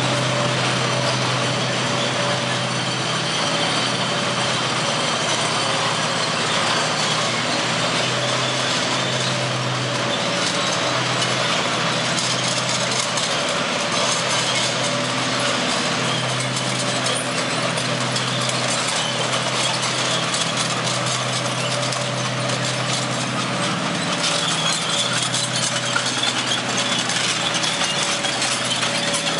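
M4 Sherman tank's engine running steadily as the tank drives slowly along a cobbled street, a very noisy, constant drone.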